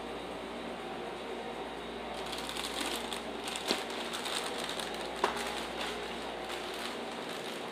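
Rattling and crackling of items being handled in a loaded shopping cart, starting about two seconds in, with two sharp clicks among them, over a steady background hum.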